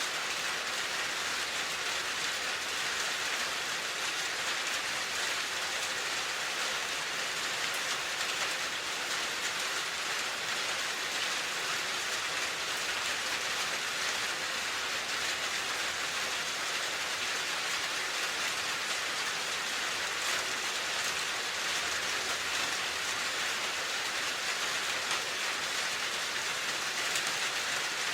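Steady, even rainfall, a dense hiss of drops on surfaces with no pauses or changes in strength.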